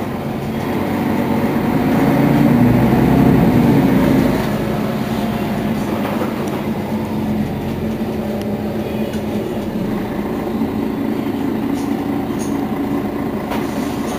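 Mercedes-Benz Citaro facelift city bus engine idling steadily at a stop, with a louder swell about two to four seconds in before it settles back.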